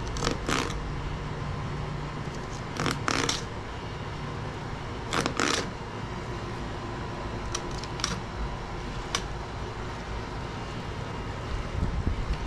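Knife cutting an alligator gar's meat away from its backbone: short crisp scraping strokes, mostly in pairs, every couple of seconds, over a faint steady hum.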